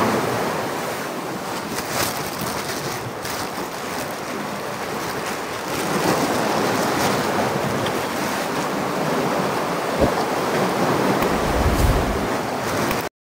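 Steady rushing noise of sea surf and wind on the microphone, with a few sharp knocks and a low wind rumble near the end.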